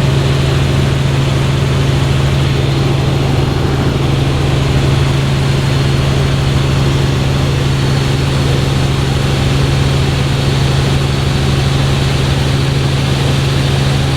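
Helicopter in flight heard from inside the cabin: a loud, steady drone with a constant low hum that holds one pitch throughout.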